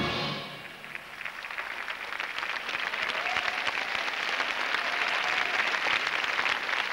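The skating programme's music fades out in the first half second, then an arena crowd's applause builds and grows steadily louder.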